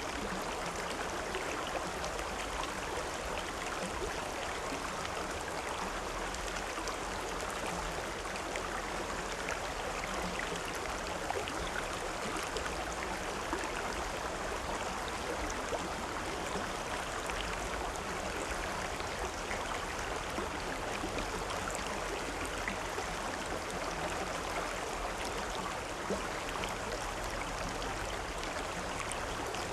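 River water running steadily, a continuous rush with small splashes and trickles throughout.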